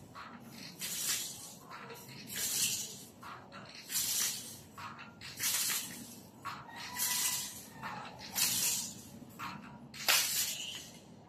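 A man's forceful hissing exhalations, one with each rep of bending a spring power-twister bar, about every one and a half seconds.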